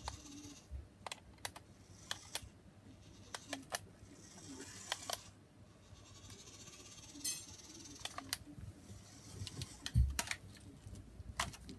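Scattered, irregular light clicks and taps, with a dull thump about ten seconds in.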